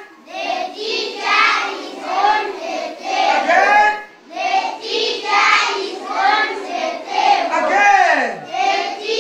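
A class of young children singing a lesson song in unison, in short rhythmic phrases, with a brief break about four seconds in.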